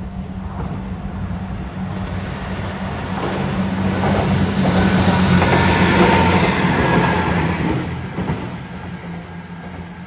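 Diesel railcar train, a JR West KiHa 120, passing over a level crossing. Its engine and wheel noise build to a peak about six seconds in and then fade, with the wheels clicking over the rail joints as it goes by.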